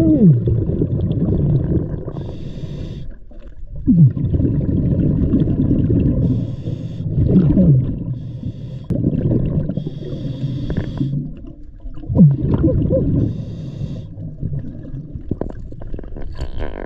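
Scuba diver breathing through a regulator underwater: a short hiss of inhaled air every few seconds, alternating with the low bubbling rumble of exhaled bubbles, with short falling tones in the bubble noise.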